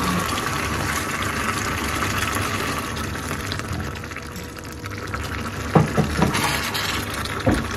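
Chicken, green pepper and tomato sizzling and bubbling in a paella pan as thick tomato frito sauce is poured in. The sizzle eases a little partway through, and a spatula knocks against the pan a few times near the end.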